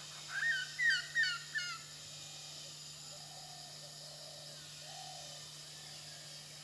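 A bird calls four quick, clear notes, each rising then dropping, about half a second in. Fainter, lower calls of another bird repeat in the background over a steady low hum.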